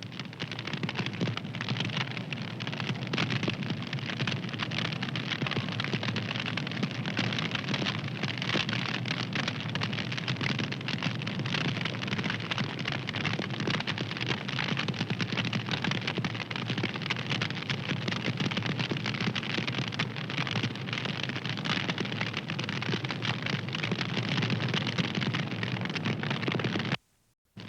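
Wood fire crackling, a dense, steady stream of small pops and snaps; the sound drops out briefly for about half a second near the end.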